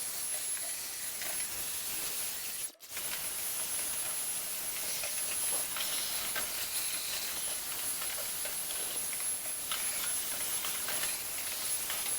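A steady hissing rush of air, breaking off for a moment about three seconds in.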